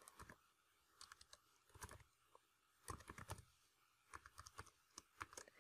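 Faint, irregular keystrokes on a computer keyboard as a password is typed, a few scattered taps with small clusters in the second half.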